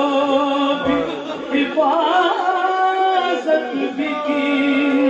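A man singing an Urdu devotional lament (noha) unaccompanied, in long held notes with an ornamented melodic turn about two seconds in.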